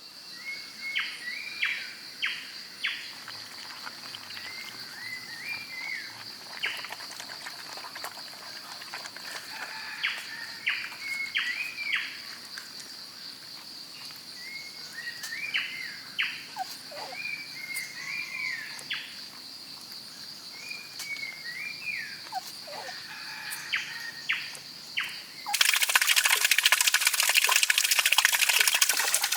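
Wild birds calling over and over in short chirping phrases above a steady high insect drone. About 25 seconds in, a loud rush of running water cuts in abruptly.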